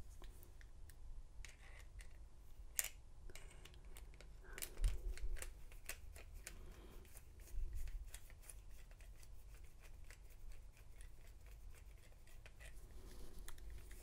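Screwdriver turning a Phillips screw out of the bottom of a steel padlock body: faint, scattered small metal clicks and scrapes, one sharper click about three seconds in, and a few low bumps from handling the lock.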